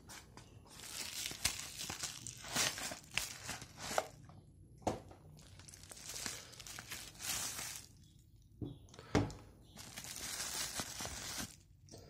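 Bubble-wrap and plastic packaging crinkling and rustling in the hands, with cardboard box flaps scraping, in irregular patches with a few sharp clicks. A single thump about three-quarters of the way through.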